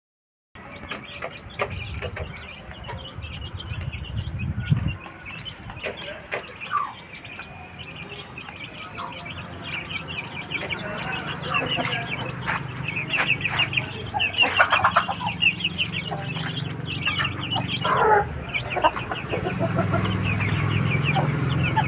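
A flock of chickens clucking and calling, with many short high peeps and a few louder calls in the second half. A low hum grows louder near the end.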